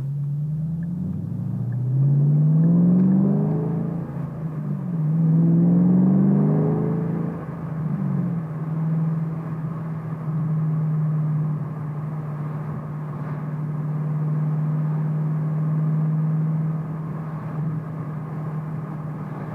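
2014 Ford Shelby GT500's supercharged 5.8-litre V8 and exhaust pulling twice, the note climbing in pitch each time, about a second and five seconds in, then settling into a steady drone while cruising. Heard from inside the car with the windows down.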